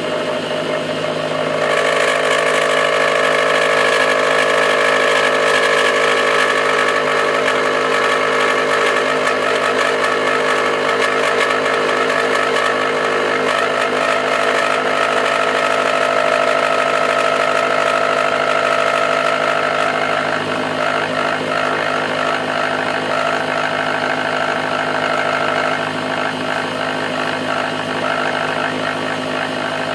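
Milling machine running with an end mill cutting steel: a steady machine whine under the rasping noise of the cutter taking chips. The cut grows louder about two seconds in and changes tone about twenty seconds in.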